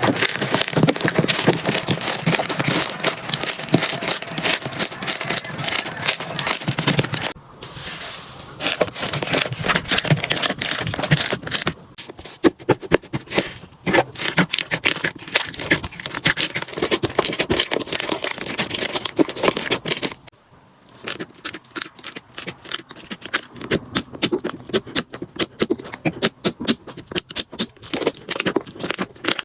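Slime being squeezed and poked by hand, giving dense, rapid crackling and popping clicks. The sound changes character at two breaks, about seven and twenty seconds in.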